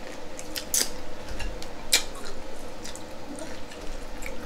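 Wet eating sounds from a saucy seafood boil: scattered smacks and clicks of mouth and fingers on sauce-covered seafood, the sharpest about a second and two seconds in.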